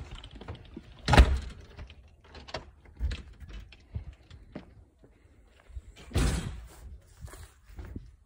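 A door, likely a sliding door, knocks shut about a second in. Footsteps follow at about two a second, and a short rush of noise comes about six seconds in.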